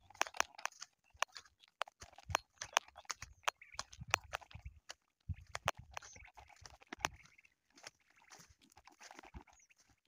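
Footsteps crunching and scuffing over dry, stubbly ground of a harvested field: an irregular run of sharp crackles.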